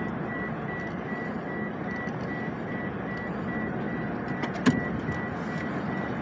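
Steady road and tyre noise of a car driving on a wet road, heard from inside the cabin, with one sharp click about four and a half seconds in.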